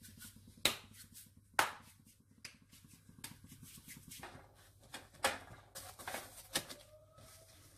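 Faint, scattered light clicks and knocks, about six spread over several seconds, from hands working at the stove: a roti is pressed and turned with a cloth on an iron tawa.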